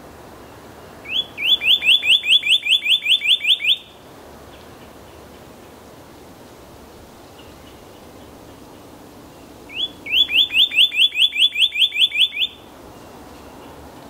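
Male northern cardinal singing two song phrases, each a rapid series of about a dozen repeated upslurred whistles at roughly five a second. The first phrase comes about a second in, the second about ten seconds in.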